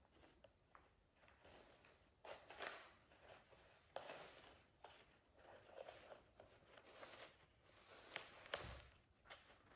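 Faint rustling of a paper tube and tissue-paper streamers being handled while string is threaded through and knotted, with a few light clicks.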